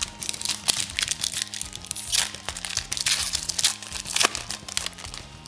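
Foil wrapper of a basketball trading-card pack crinkling as it is torn open by hand, in a quick irregular run of sharp crackles, over quiet background music.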